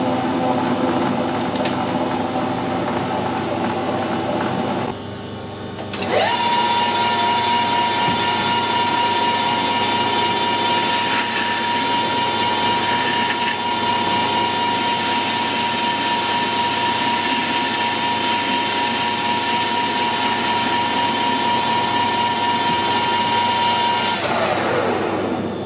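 Metal lathe turning a hardened steel stud, running with a steady motor whine and cutting noise. About five seconds in it dips; a second later it spins back up with a rising whine and holds a steady pitch. Near the end it is switched off and the whine falls away as the spindle winds down.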